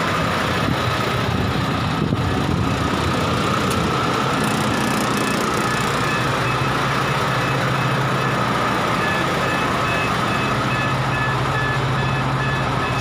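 Heavy truck's diesel engine idling steadily, with a regular beeping that starts about nine seconds in.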